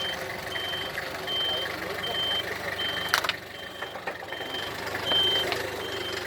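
Vehicle reversing alarm beeping: a single high tone repeating steadily about once every three-quarters of a second, with one sharp knock about three seconds in.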